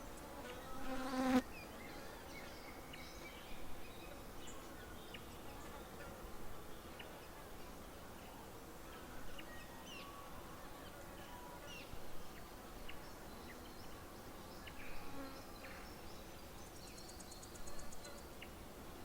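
Forest birds calling in short, scattered chirps and whistles, with a flying insect buzzing close past about a second in.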